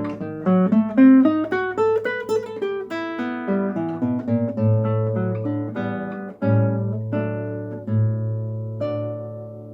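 Acoustic guitar playing a quick run of plucked notes over held bass notes, closing on a chord about nine seconds in that rings and fades away.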